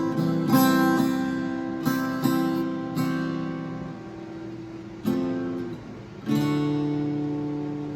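Acoustic guitar strumming slow chords, each struck and left to ring out, with a few seconds' fade before the last two strums.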